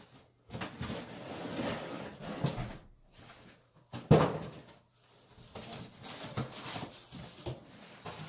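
Cardboard carton of a folding attic ladder being opened and handled: rustling and scraping of cardboard, a sharp knock about four seconds in, then lighter shuffling as the packing is pulled out.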